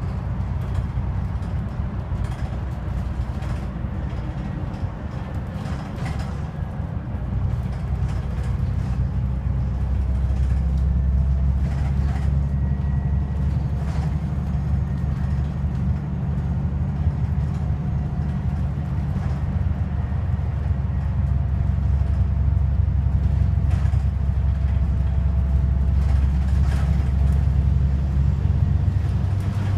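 Volvo Plaxton President double-decker bus under way, heard from inside on the upper deck: a steady low engine and road drone that grows louder about a third of the way in as the bus picks up speed. A faint whine runs under it, with a few light rattles.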